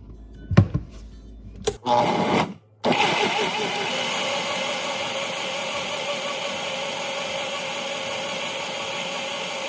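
Vitamix blender blending peeled oranges with water into juice: a short burst about two seconds in, a brief stop, then steady running.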